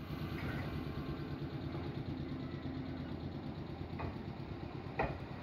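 Nankai 7100-series electric train standing at the platform with its onboard equipment humming steadily, just before departure. Two short sharp knocks come about a second apart near the end, the second louder.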